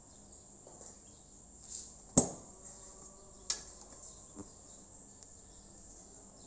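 Insects chirping steadily in a high, pulsing band. A sharp click comes about two seconds in, and a smaller one a little over a second later.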